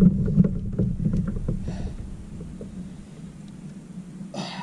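A landed catfish being handled in the lap of an angler on a plastic kayak: a low rumble with many small knocks, loudest at first and fading by about three seconds in. A short hiss comes near the end.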